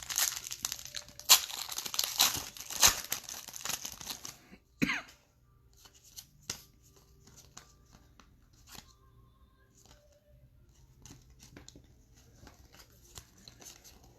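A foil trading-card pack wrapper being torn open and crinkled for about four seconds, then a short sharp rustle and faint clicks of cards being handled.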